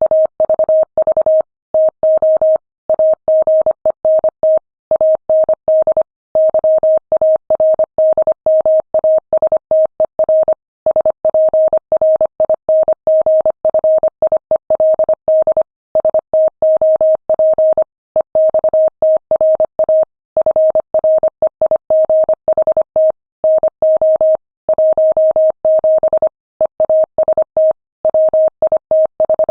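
Morse code sent at 25 words per minute: a single clean tone of about 600 Hz keyed on and off in dots and dashes, with brief silences between characters and longer pauses between words. It spells out the text of a freight movement order.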